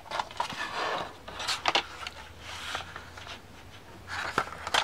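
A sheet of paper rustling and scraping as it is handled and lined up on a sliding paper trimmer, in several short bursts, with a sharp click near the end.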